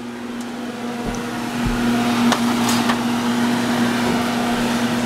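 A steady electric hum with an even, fan-like rushing noise that grows louder over the first couple of seconds, and a few light clicks or knocks.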